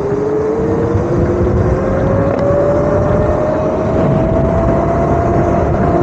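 Electric dirt bike accelerating, its motor whine rising steadily in pitch, under heavy wind rush on a helmet-mounted microphone.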